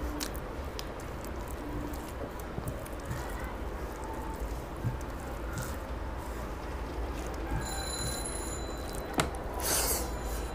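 Hand mixing rice and fish curry on a stainless steel tray: scattered soft taps of the fingers against the tray, with a brief high metallic ring about eight seconds in and a sharper knock and rustle shortly after. A steady low hum runs underneath.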